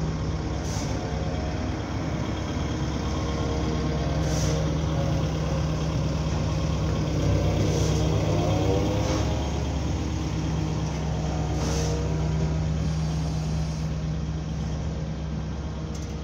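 Diesel engine of a yellow road-rail wheeled excavator running steadily as the machine rolls slowly past along the track, with a brief sharp noise about every four seconds.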